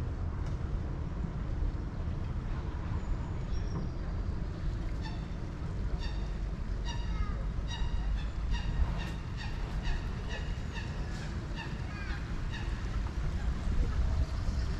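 Water birds calling: a run of short calls, several a second, from about five seconds in until near the end, over a steady low rumble.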